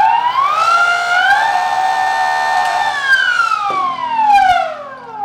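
Unloaded brushless DC (BLDC) motor spinning under throttle from its controller, making a loud electric whine. The pitch climbs in two steps, holds for about a second and a half, then glides smoothly down as the motor winds down.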